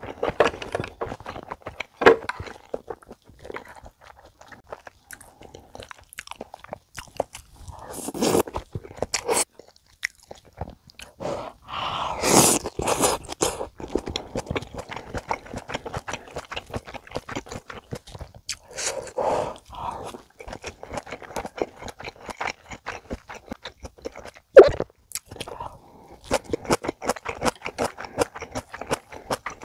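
Close-miked, wet chewing of budae jjigae: ham, sausage and ramen noodles, with many small mouth clicks and a few longer slurps, the longest about twelve seconds in. One sharp click about 24 seconds in is the loudest sound.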